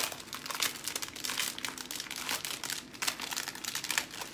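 Large stencil transfer sheet crinkling and rustling as it is handled and moved over the board, a run of quick irregular crackles.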